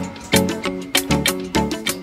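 Background music: a quick run of short pitched notes at about four a second.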